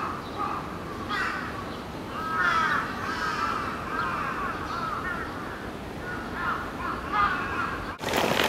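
Crows cawing: a run of harsh calls coming in short bursts of several caws, over a steady outdoor background, breaking off abruptly near the end.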